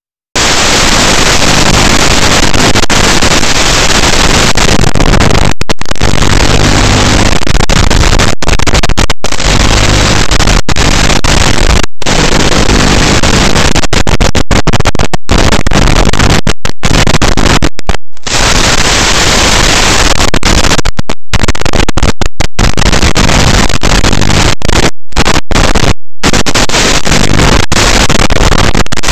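Loud, even hiss of radio static on the audio channel of an analog FPV video link, broken again and again by brief dropouts.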